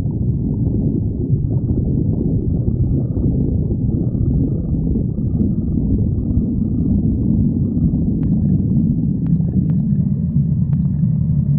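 A hungry human stomach growling: a continuous, uneven low rumbling and gurgling.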